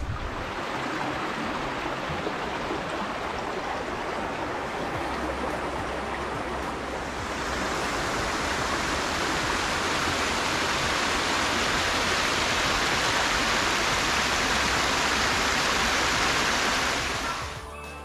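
Small forest creek rushing over rocks, a steady wash of water that grows louder about seven seconds in and drops away sharply near the end.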